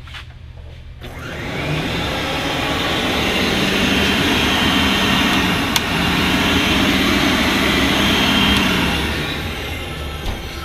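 Canister vacuum cleaner switched on: its motor spins up about a second in, runs with a steady whirring hum for several seconds, then is switched off and winds down near the end.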